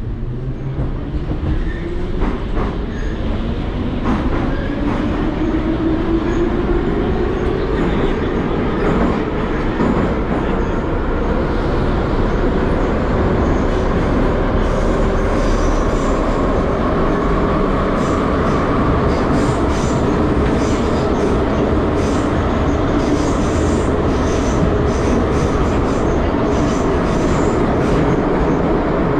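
Metro train running on the track, heard from inside the car: a motor whine rising in pitch over the first several seconds as it accelerates out of the station, then a steady rumble of wheels on rails with rhythmic clicking in the second half.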